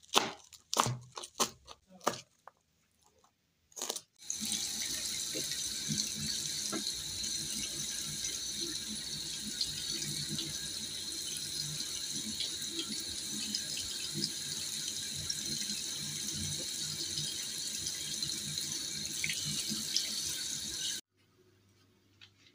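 A knife chopping spinach on a plastic cutting board, several quick strokes; then, about four seconds in, a kitchen tap running steadily into a sink while fresh anchovies are rinsed in a plastic colander. The water cuts off suddenly near the end.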